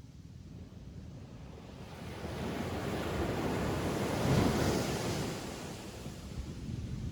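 Ocean wave breaking on a beach: a rush of surf that builds from about two seconds in, peaks near the middle and washes away, over a steady low rumble.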